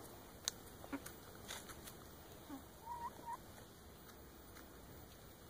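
Faint sound of hens pecking at a watermelon slice: a few sharp beak taps and clicks. About three seconds in, a hen gives two short, soft notes.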